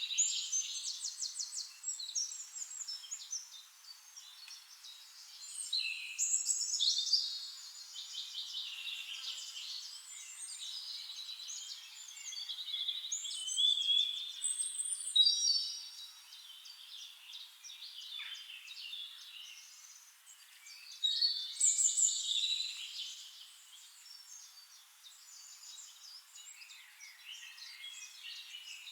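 Several songbirds singing at once: overlapping high chirps and rapid trills, swelling louder about six, fifteen and twenty-two seconds in.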